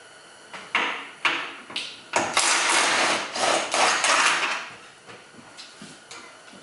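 Impact gun spinning off subframe bolts: three short bursts in the first two seconds, then one longer run of about two and a half seconds.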